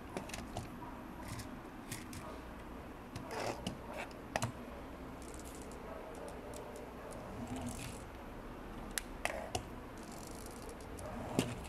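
Scattered light clicks and taps of plastic LEGO Technic parts being handled on a table, over a faint steady background hiss.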